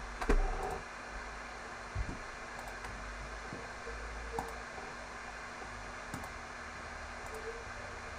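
Steady hiss and low hum of room and microphone noise, with a few scattered clicks and knocks. The loudest knock comes about a third of a second in, and another comes at about two seconds.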